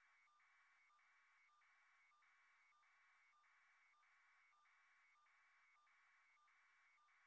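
Near silence: only a very faint hiss that dips out briefly at an even beat, about every half second or so.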